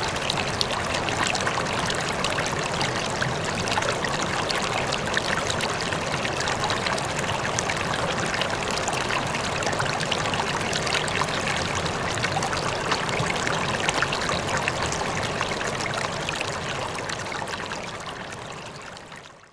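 River water flowing and splashing steadily over stones, a continuous babbling rush that fades out near the end.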